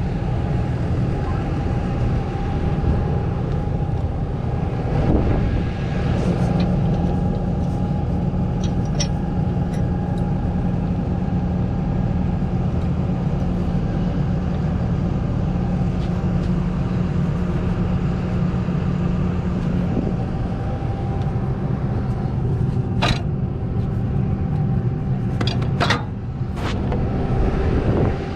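Heavy diesel engine running steadily, with a few sharp metallic clanks near the end.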